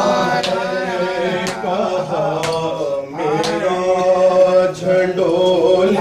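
Male voices chanting a noha, a Shia lament, over a microphone. A sharp slap about once a second keeps the beat, the chest-beating (matam) that goes with the recitation.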